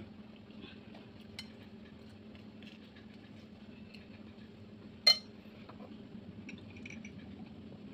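A single sharp clink of tableware about five seconds in, with a fainter tick about a second in, over a low steady background hum.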